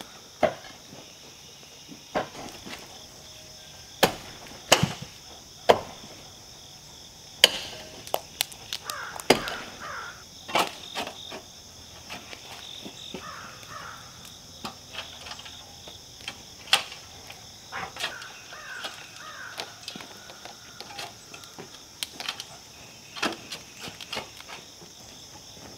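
Shovels digging by hand into hard, rocky clay: irregular sharp strikes and scrapes of the blades, a dozen or so spaced a second or more apart, thickest in the first ten seconds. A steady high drone of insects runs underneath.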